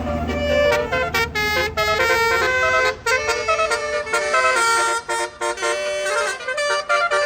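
Bus's telolet basuri musical horn playing a quick tune of short, separate notes at different pitches. A low engine rumble underneath fades out about two and a half seconds in.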